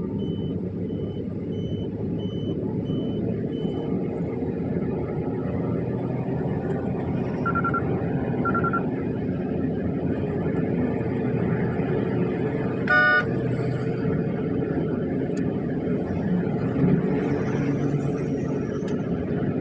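Car on the move: steady engine and road rumble, with an electronic beep repeating about twice a second for the first four seconds, two short tones about eight seconds in, and a brief horn toot about thirteen seconds in.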